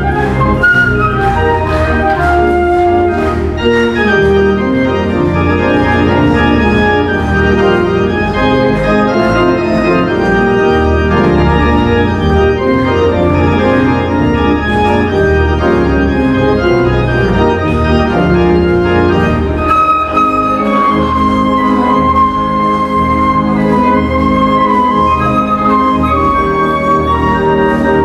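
Organ accompaniment playing sustained chords, with a concert flute carrying a clear melody over it in the last third.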